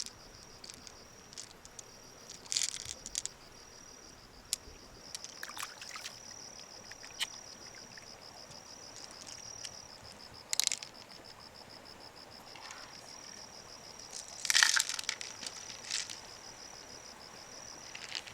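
An insect trilling steadily at a high pitch, with scattered sharp clicks and brief rustles from handling, the loudest near the start, in the middle and about three quarters of the way through.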